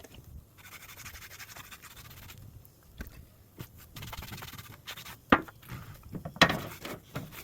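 A rag rubbing oil finish onto a rough old 2x6 board, in stretches of scraping and wiping, with two sharp knocks about five and six and a half seconds in.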